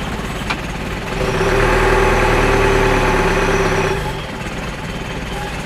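Heavy diesel truck engine running, revved up just over a second in and held steady for nearly three seconds with a faint high whine, then dropping back to idle about four seconds in.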